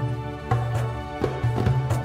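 Background music only: an Arabic-style instrumental of regularly struck, plucked notes over a steady bass line.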